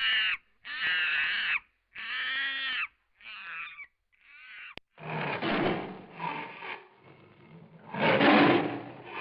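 A large fowl gives five drawn-out calls in a row, each up to about a second long with short gaps between them. After a sharp click about five seconds in, a big cat growls and roars roughly, loudest near the end.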